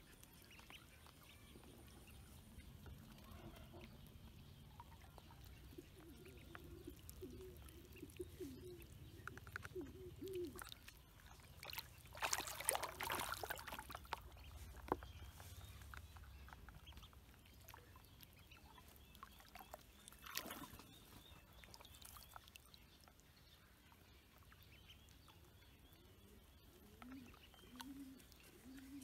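Ducklings splashing in a shallow plastic basin of water, a short burst of splashing about twelve seconds in and a smaller one about twenty seconds in. Faint, low, wavering bird calls sound in the background early on and again near the end.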